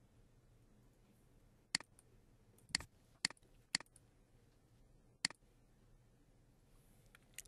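Computer mouse clicking: about six short, sharp single clicks at uneven intervals.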